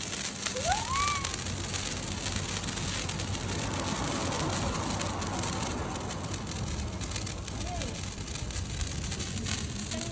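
Handheld fireworks burning, a steady hiss of spraying sparks, with a few brief high voice calls, one about half a second in and one near the end.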